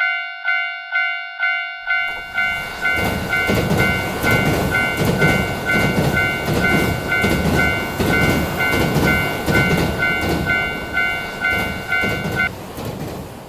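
Japanese railroad crossing warning bell ringing "kan-kan" about twice a second. About two seconds in, a passing train's rumble and rhythmic wheel clatter join it. The bell stops shortly before the end while the train noise runs on.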